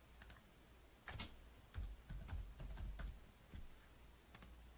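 Faint typing on a computer keyboard: a quick run of keystrokes as a short word is typed, with a few single key clicks near the start and end.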